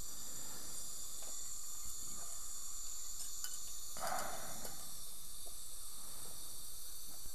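Steady hiss of a dental suction device drawing air in the patient's mouth, with a short louder whoosh about four seconds in.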